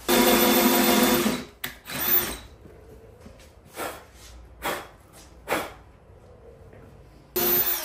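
Cordless drill with a 3/8-inch bit boring out a pilot hole in a wooden chair leg: a steady whine for about a second and a half, a short pulse soon after, then another short burst near the end.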